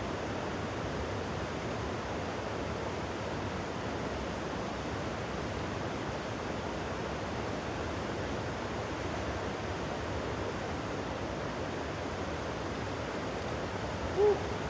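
Steady rushing hiss of rain and a shallow, low-flowing river, with one brief pitched sound near the end.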